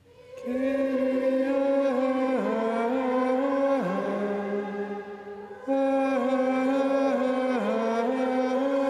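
Plainchant sung on a single melodic line: slow held notes with small dips between them. The same phrase begins again about six seconds in.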